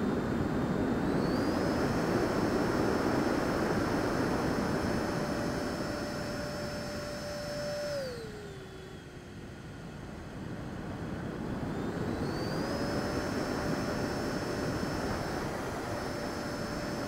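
Freewing Avanti's 80mm electric ducted fan running at speed with a steady whine over a rush of air. About eight seconds in the whine falls in pitch and the sound gets quieter as the throttle comes back, then it glides back up to full power a few seconds later.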